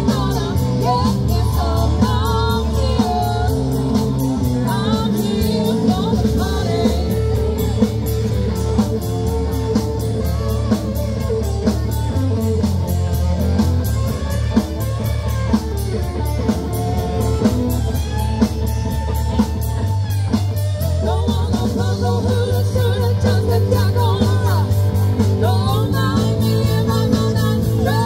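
Live rock band playing: a male lead vocal over electric guitar, bass guitar and keyboards, with drums keeping a steady beat.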